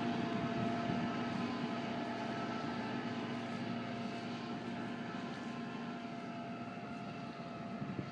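Tractor engine running steadily under load, towing a gravel mole drain plough through grassland, growing slowly quieter as it pulls away.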